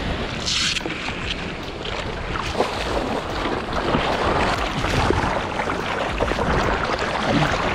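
Seawater splashing and sloshing around the nose of a surfboard as it is paddled through small, choppy water, with wind on the microphone. A sharp splash comes about half a second in, and the water crackles and splashes more densely from a few seconds in.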